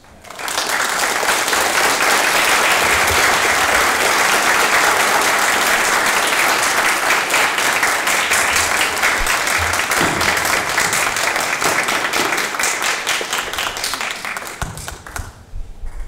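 Audience applauding: a dense, steady round of clapping that starts about half a second in, then thins to scattered single claps and stops shortly before the end.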